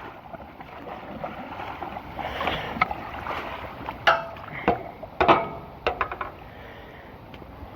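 Flood water pouring and gurgling into a clogged street storm drain as a steady rushing noise, with several short sharp knocks and splashes in the middle of the stretch as debris is cleared off the drain.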